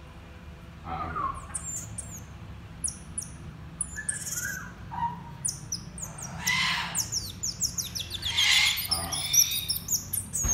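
Small pet monkey giving rapid, very high-pitched chirps that fall in pitch, in quick runs that grow busier after the first few seconds. Two short hiss-like noises come at about six and eight seconds.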